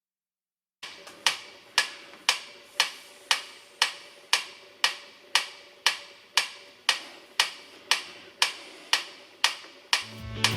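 Metronome clicking at a steady tempo, about two sharp clicks a second. Near the end a band with electric guitar and drums comes in over the beat.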